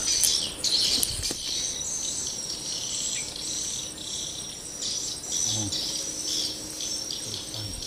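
Insects chirping in a steady high-pitched chorus that pulses unevenly, with a few faint clicks.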